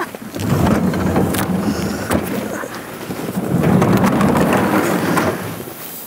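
Heavy low rumbling from the snow-covered cold tunnel, rising and falling in two long swells with a few sharp knocks.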